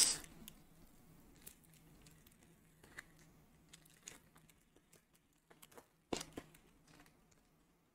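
A baseball card pack being torn open and its wrapper crinkled and handled: scattered small crinkles and clicks, loudest in a short cluster about six seconds in.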